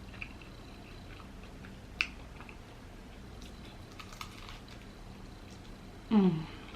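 Close-up chewing of a lobster roll: soft, sparse mouth clicks and smacks. Near the end a short hummed 'mmm' of enjoyment falls in pitch.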